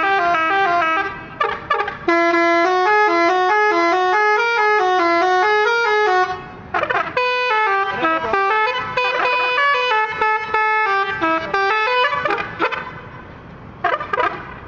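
Tour buses' telolet horns, multi-tone air horns playing quick stepping melodies. One tune runs for about four seconds, then after a short break another runs for about five seconds, with short separate blasts between and near the end.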